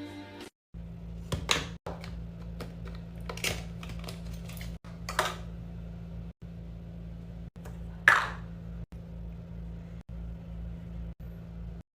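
Packaging being handled during an unboxing: a few short rustles and light knocks, the loudest about eight seconds in, over a steady low hum that cuts out abruptly several times.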